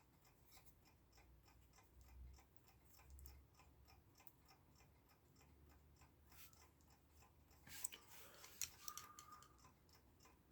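Faint, quick ticking of a mechanical clock, about four ticks a second. A few louder clicks and handling noises come near the end.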